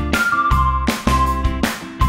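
Upbeat background music with a steady beat of about two strikes a second, a bass line and a held melody.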